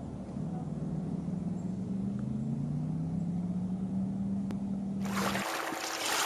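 Steady low drone of a distant engine, its pitch drifting slowly upward. About five seconds in, the drone gives way abruptly to a loud rushing hiss.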